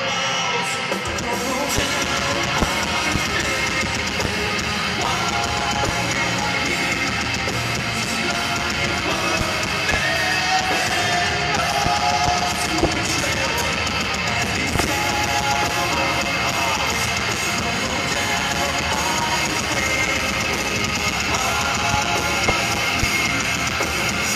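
A heavy metal band playing live, with distorted electric guitars and a drum kit, heard from the seats of a large arena.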